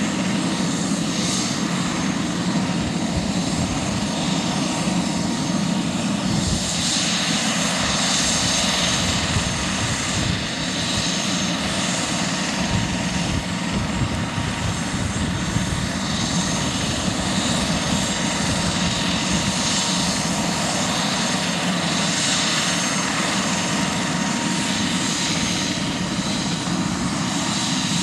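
Airbus H145 helicopter running on the ground with its twin turboshaft engines turning the main rotor: a steady high turbine whine over a constant rushing noise.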